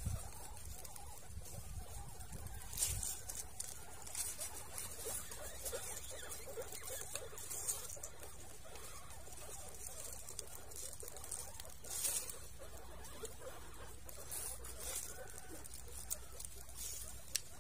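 Guinea pigs moving about and nibbling the food just put in for them: a steady scatter of small rustles and crisp clicks, with a few louder ones about three seconds and twelve seconds in.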